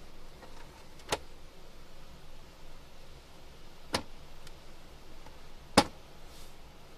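Sharp plastic clicks from a 2019 Cadillac XTS rear centre armrest as its pull-out cupholder is pushed shut and the armrest is handled. There are three clicks: about a second in, about four seconds in, and the loudest near six seconds.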